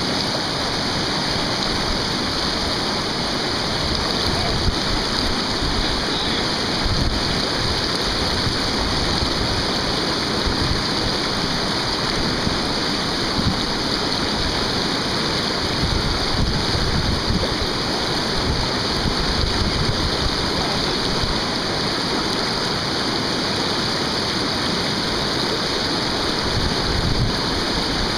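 River rapid pouring over boulders: a loud, steady rush of churning whitewater.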